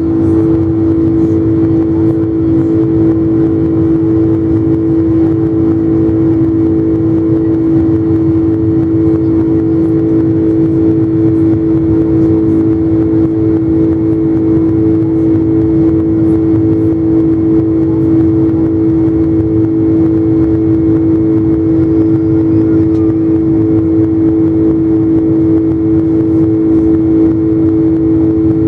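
Boeing 747 jet engines running at high power during takeoff: a loud, steady drone with one strong constant hum over a heavy rumble, unchanging throughout.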